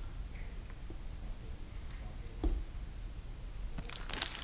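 Faint handling of a parts package made of card and a plastic bag: one soft knock about halfway through, then a short burst of rustling clicks near the end.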